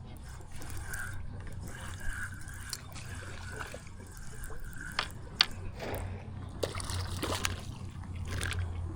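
A freshly caught croaker held out of the water, making its faint croaking noise, amid water dripping and small splashes and clicks.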